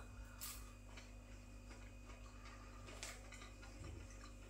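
Near silence: room tone with a steady low hum and two faint clicks, one about half a second in and one about three seconds in.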